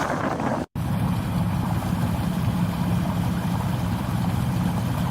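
Wind buffeting the microphone, cut off abruptly under a second in. Then a boat engine runs steadily under way with an even low drone.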